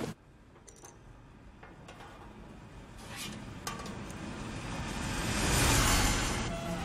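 Animated film's machine sound effects: a few faint metallic clicks and clinks, then a rushing mechanical noise that swells steadily over several seconds to loud near the end.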